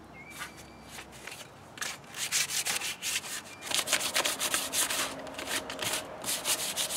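220-grit sandpaper rubbed by hand in quick back-and-forth strokes along a wooden walking stick, starting about two seconds in, with short pauses. It is smoothing the rough-feeling first coat of polyurethane before the second coat.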